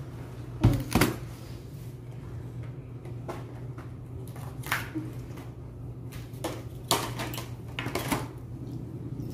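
Plastic candy wrappers and a bag being handled on a table: scattered crinkles and taps, the sharpest two about a second in, over a steady low hum.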